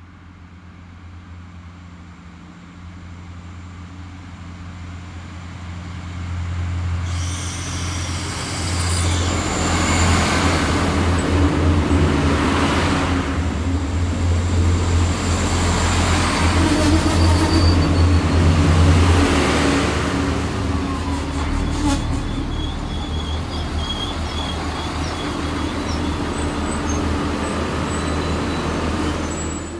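Irish Rail diesel multiple-unit train pulling into a station platform: engine drone and wheel noise build from about six seconds in, are loudest as the carriages run past, then settle to a steady engine hum as it stands. Faint high squeaks come near the end.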